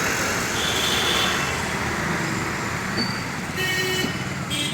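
Steady street traffic noise with vehicle horns sounding, one about half a second in and a longer one near the end.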